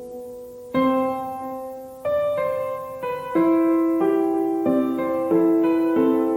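Background piano music: slow, gentle chords struck one after another, each fading before the next.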